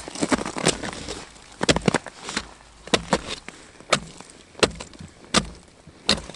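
Small hatchet chopping through a thin layer of ice over a water hole: about ten sharp chopping strikes, irregularly spaced.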